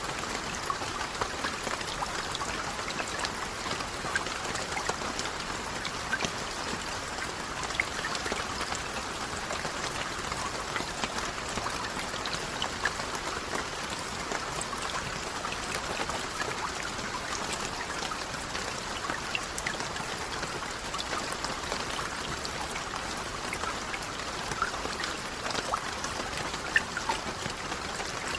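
Steady rain with many individual drops pattering and ticking, mixed with trickling water.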